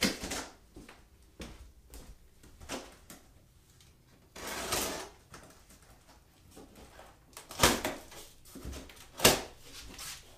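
A large cardboard carton being cut open with a utility knife and its flaps pulled back: a half-second scraping rip about halfway through and a scatter of sharp knocks and taps from handling the box, the loudest two near the end.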